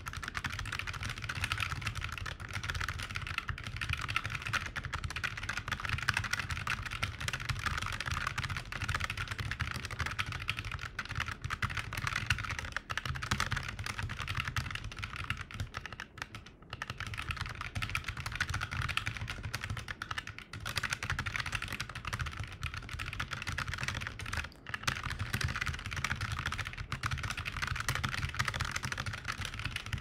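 Fast continuous touch-typing on a Glove80 split ergonomic keyboard: a dense stream of key clicks at about 138 words per minute, broken by a few short gaps.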